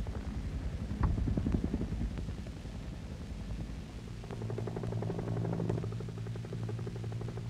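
Bell H-1 (Huey) helicopter in flight: its rotor blades beat in a fast, even rhythm over a low engine drone. About four seconds in a steadier humming tone swells up as the helicopter passes overhead.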